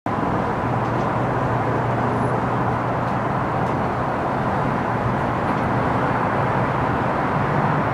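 Diesel locomotive of a GO Transit MP40PH-3C train running as the train pulls away, a steady low drone whose pitch steps up near the end.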